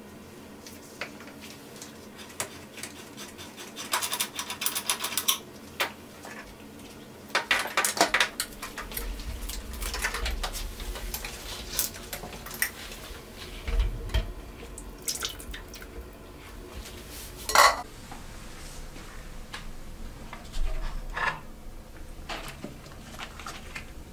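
Clattering and knocking of metal home-brewing gear being handled as the coiled wort chiller and its hoses are lifted off a stainless Grainfather kettle. There are rattling bursts, and the loudest single knock comes about three-quarters of the way through.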